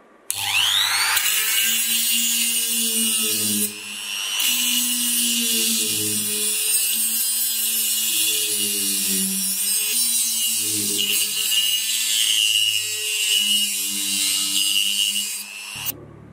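Rotary tool with a thin cut-off wheel spinning up with a rising whine, then grinding steadily into a steel screw head to cut a slot across it. It cuts off suddenly near the end.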